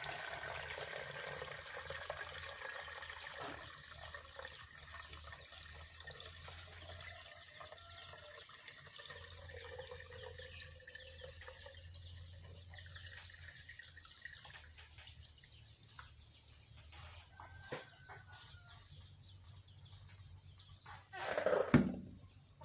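Water pouring through a sieve of pounded herbs into a poultry drinker. It runs strongest at first and thins out to a trickle. There is one short louder sound near the end.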